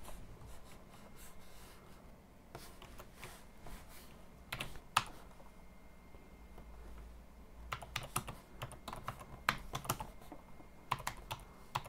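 Computer keyboard being typed on: keystrokes come in short runs with pauses between, the densest run about eight to ten seconds in.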